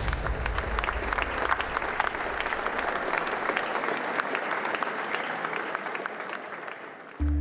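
Audience applauding, thinning out toward the end. Drum-led music fades out under the clapping in the first few seconds, and a new piece of music with low sustained notes starts just before the end.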